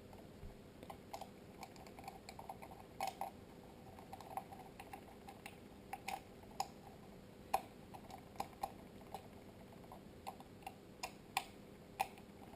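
Irregular light clicks and taps of a small screwdriver and plastic parts while a plastic IP camera housing is being screwed back together.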